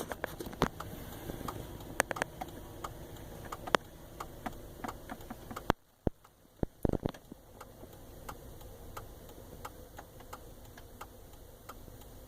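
Slow-moving freight train of empty intermodal flatcars rolling by: irregular sharp clicks and clanks of wheels and cars over a low rumble, dropping away briefly about six seconds in.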